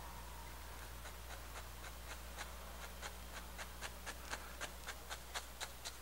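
Bristle brush dabbing and tapping oil paint onto a stretched canvas: a run of soft quick taps, sparse at first and then about three or four a second, over a faint steady hum.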